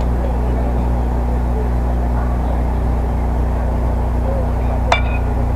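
Steady low rumble with faint distant voices at a baseball field, and a single sharp ringing metallic crack near the end, the sound of a metal bat striking the ball.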